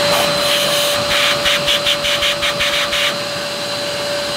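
Numatic Quick cordless vacuum cleaner's motor running on its low suction setting: a steady high whine over a rushing of air, with a rapid flutter in the hiss for a couple of seconds in the middle.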